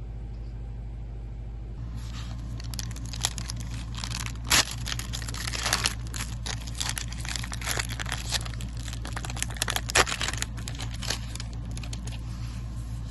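A foil wrapper of a 1991-92 Upper Deck basketball card pack being torn open and crinkled by hand, starting about two seconds in, with a couple of sharper, louder cracks of the foil.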